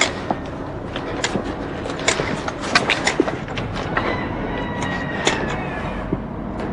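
Irregular clicks and knocks of soldiers' footsteps and gear as a group moves on foot, with a faint steady high tone for about a second and a half starting around four seconds in.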